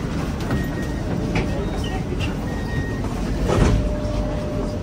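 Inside a tram as passengers board: steady rumble with voices. About three and a half seconds in, a thump, likely the doors closing, and then a steady tone sets in.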